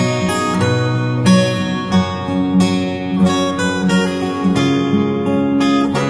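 Instrumental background music led by a plucked, strummed acoustic guitar.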